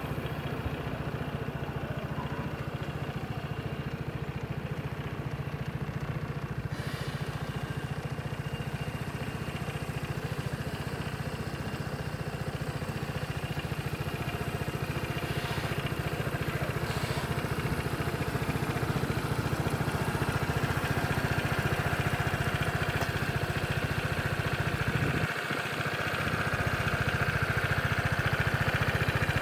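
Piaggio Vespa GTS 300 Super's single-cylinder four-stroke engine idling steadily, a little louder over the last few seconds.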